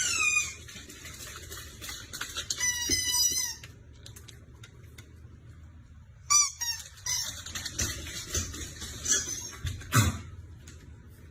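High-pitched animal squeaks and chirps: a short call at the start, a quick wavering trill about three seconds in, a falling call a little after six seconds, and a sharp, louder sound near the end.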